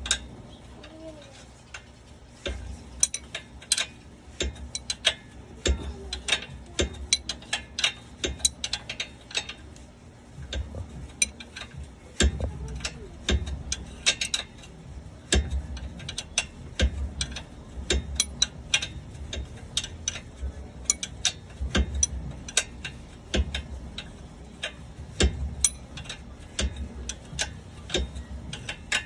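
Hand tools working on a car's front suspension: clicking in irregular runs, like a ratchet wrench, mixed with scattered metallic knocks and clinks.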